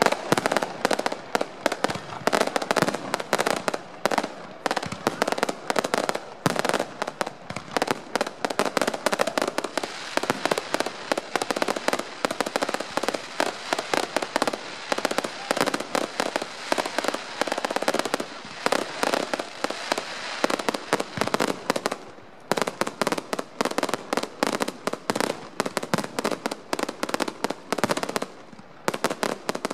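Aerial fireworks display: shells launching and bursting in rapid succession, a dense run of sharp bangs several a second over a steady background noise, thinning briefly about three quarters of the way through.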